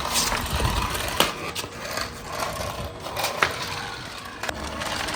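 Toy remote-control car with a small electric motor whirring, with scattered plastic clicks and knocks.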